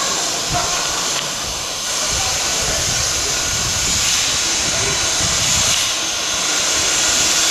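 LMS Ivatt Class 2MT steam locomotive No. 46512 hissing steam steadily, with an uneven low rumble beneath.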